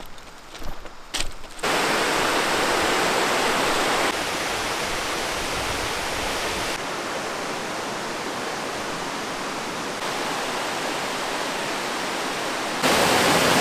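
A few footsteps crunching on railroad ballast, then the steady rush of a shallow creek running over rocks. The rushing jumps up or down in level suddenly every few seconds.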